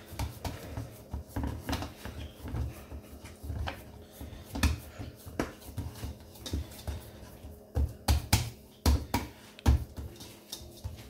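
A hand pressing and patting a ball of stiff dough in a metal bowl while coating it with a little oil: a run of soft thumps, about two or three a second, with a few sharper, louder slaps about eight seconds in.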